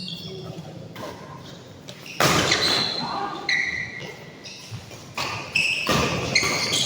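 Badminton rally in a large hall: sharp racket strikes on the shuttlecock and thuds of footwork on the court, echoing, with voices in the background.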